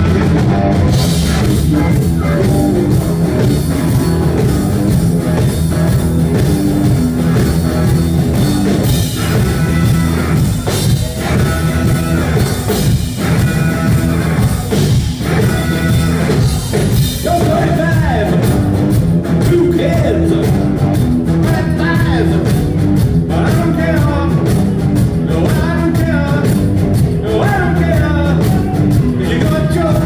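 Live rock band playing: drums, electric guitars and keyboards, loud and continuous, with singing coming in about halfway through.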